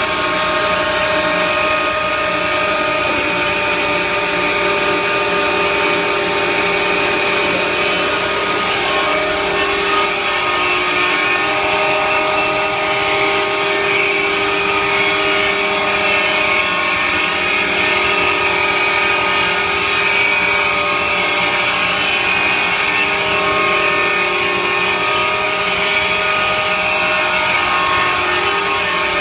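CNC router spindle running with a steady whine as its bit cuts printed sheet stock, over the even hiss of the cut.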